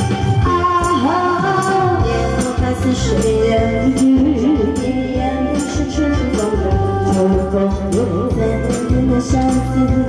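A woman singing into a microphone over loud backing music with a steady beat and a heavy bass line.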